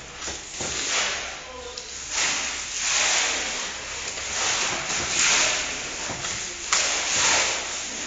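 Willow rods swishing and rustling against each other as they are woven into a hurdle, coming in several long surges of hissing rustle, one starting sharply near the end.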